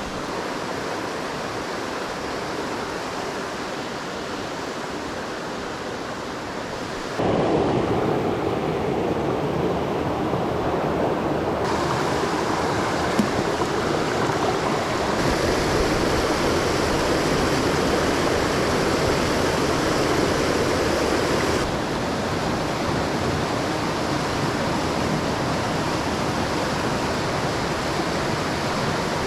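Rushing water of a mountain stream, a steady noisy rush that gets abruptly louder about seven seconds in and changes character suddenly a few more times.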